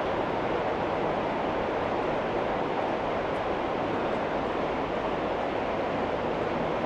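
Steady rushing of a stream's flowing water, an even wash of noise with no breaks.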